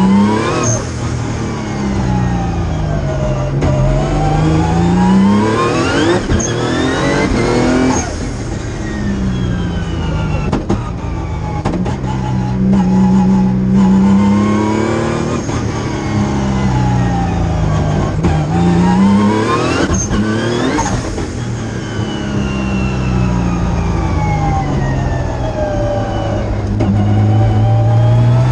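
Highly tuned Nissan March race car engine heard from inside the cabin under hard driving, its pitch repeatedly climbing as it accelerates, then dropping and climbing again several times.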